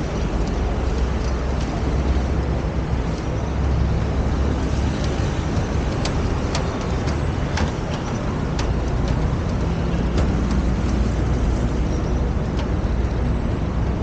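Road traffic on the street below: a steady low rumble of passing cars, taxis and motorbikes, with a scattered run of light clicks about halfway through.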